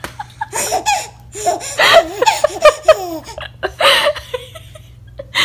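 A baby laughing: a string of short, high-pitched giggles for about four seconds, then a pause near the end.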